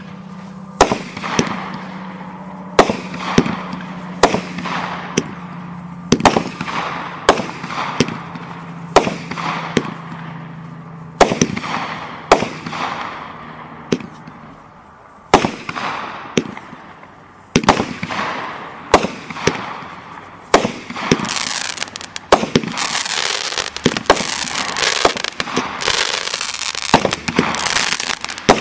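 Jaw Breaker 200-gram consumer firework cake firing: a series of sharp bangs about one a second, each fading away. About two-thirds of the way through it turns into dense, continuous crackling with bangs still going on over it.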